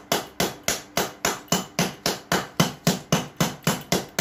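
Rapid, steady pounding: a rod striking a USB Type-C charger's connector against a tile floor, about four hard knocks a second.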